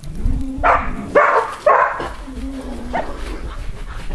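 Dogs barking, four or so short barks over a few seconds, over a low rumble of wind on the microphone.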